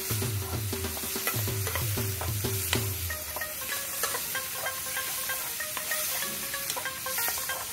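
Chopped onions sizzling in hot oil while a slotted metal spatula scrapes and taps against the metal pot as it stirs them, over background music.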